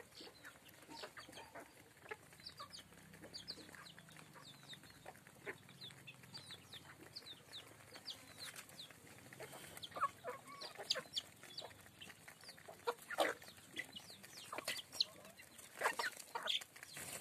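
Flock of Apatani chickens clucking with many short high calls while feeding, with sharp taps of beaks pecking grain off concrete that grow louder and more frequent about halfway through.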